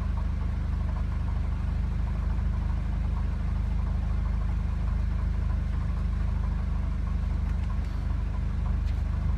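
2014 Mitsubishi Lancer Ralliart's 2.0-litre turbocharged four-cylinder idling steadily through its stock exhaust.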